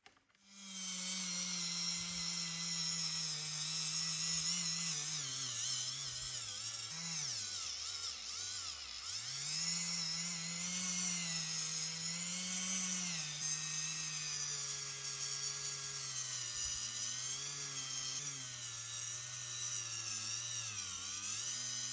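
Small electric power tool motor running, its pitch sagging and recovering as it bears on the work, the way a tool slows under load. It starts up right at the beginning and stops abruptly at the end.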